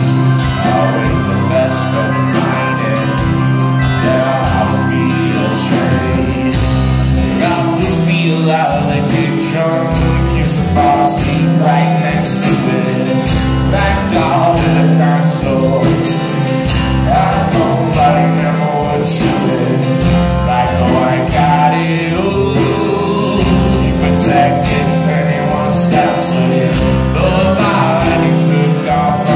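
A live band playing a song on acoustic guitar, electric bass, keyboard and drums, with a man singing at times.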